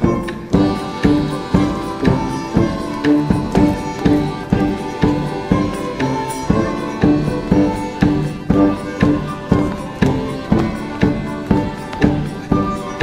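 Folk ensemble playing a lively old dance tune live: tuba, saxophone, violins and accordion over bass guitar and a bass drum beating a steady pulse about twice a second.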